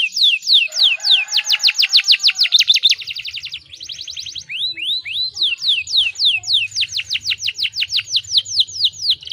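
Domestic canary singing a long song of repeated falling whistled notes that speed up into a rapid trill about three seconds in. After a short break it goes on with rising notes and then more falling ones. This is canary song used as a 'pancingan' to prompt young, untrained canaries to start singing.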